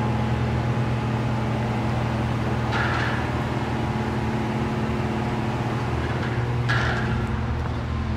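A steady low mechanical hum, with two brief soft noises about three and seven seconds in.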